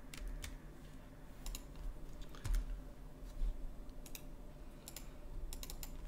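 Computer keyboard keys and mouse buttons clicking in scattered, irregular taps, some in quick pairs, over a faint steady hum.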